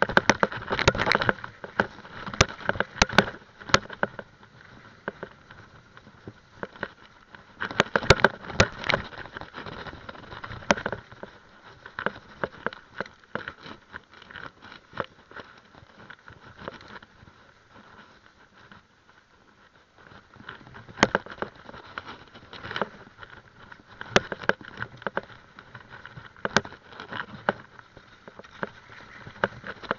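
Mountain bike ridden over rough dirt singletrack: tyre noise on the trail with frequent rattles and knocks from the bike over bumps. Busiest in the first few seconds, again around eight to eleven seconds in, and through much of the last third, quieter in between.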